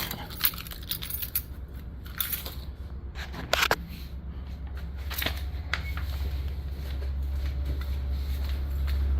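Mail being sorted through by hand: scattered paper rustles and small clicks, over a steady low rumble that grows louder in the second half.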